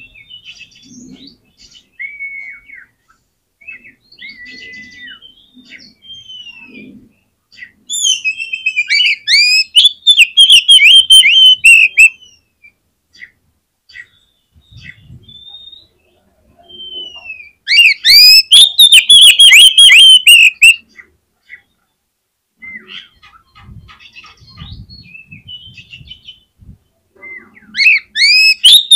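Oriental magpie-robin (kacer) singing: soft, varied whistled phrases broken three times by loud bursts of rapid, repeated sweeping notes, each lasting about three seconds.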